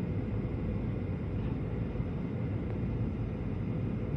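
Steady rumble and rush of an airliner's engines and airflow, heard inside the passenger cabin on the approach to landing.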